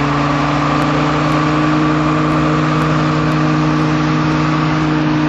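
Engine of a snow-clearing vehicle working the street, running steadily under load, its pitch creeping up slightly toward the end.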